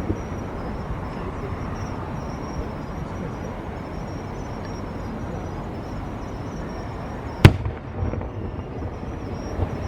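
A single sharp firework bang about seven and a half seconds in, the loudest sound, followed by a few fainter knocks, over a steady outdoor background hum.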